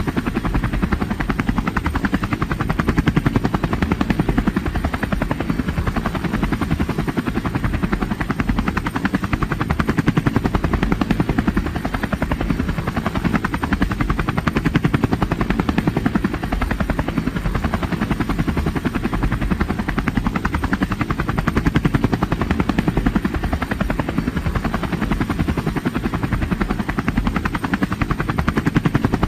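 Helicopter rotor blades beating in a fast, steady chop, with the engine running underneath and the level swelling gently every few seconds.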